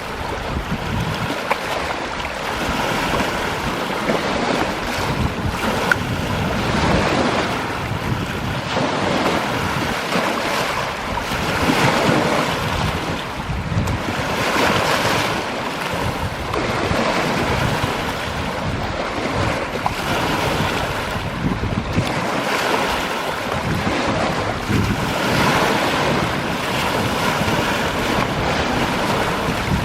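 Waves breaking on a beach, the wash swelling and easing every few seconds, with wind buffeting the microphone.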